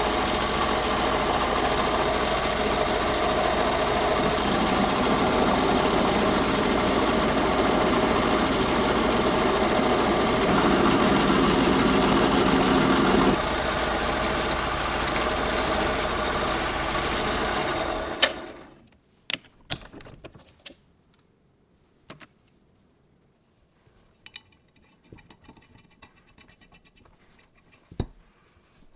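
An electric power tool running steadily for about eighteen seconds, growing a little heavier for a few seconds, then switched off and spinning down. Light clicks and taps of parts being handled follow.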